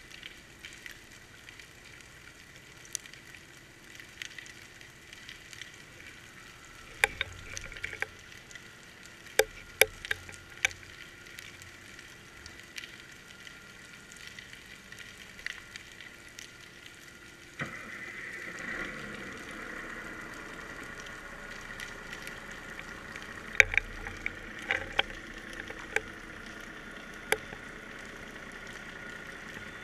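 Underwater sound picked up by a GoPro in its waterproof housing on a fishing rig: a steady crackling hiss with a faint high whine, sharp clicks and knocks now and then, and the hiss stepping up in level a little over halfway through.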